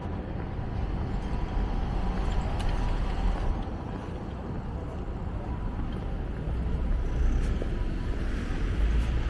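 Steady outdoor city ambience: a low rumble of road traffic and wind.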